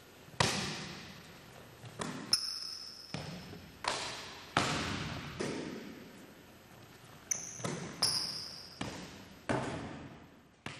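A basketball bouncing and slapping on a hardwood gym floor, about a dozen sharp, irregular hits, each echoing in the large hall, with a few short high squeaks mixed in.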